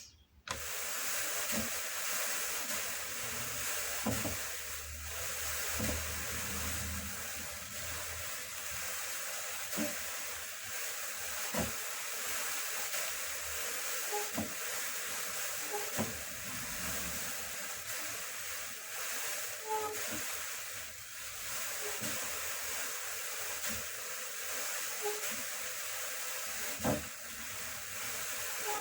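Drum carder running as Jacob fleece is fed through it: the carding cloth makes a steady brushing hiss, with scattered light clicks.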